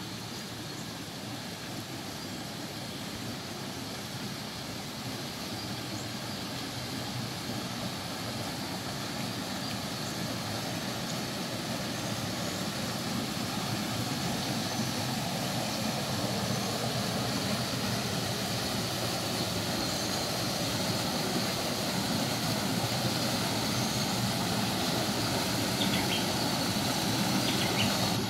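Small waterfall spilling over rocks into a pool: a steady rush of water that grows louder as it gets nearer.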